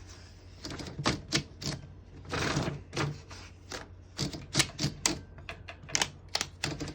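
A 1936 Corona Standard portable typewriter's mechanism being worked: a run of sharp, irregular clacks and clicks, with a brief longer rattle about two and a half seconds in.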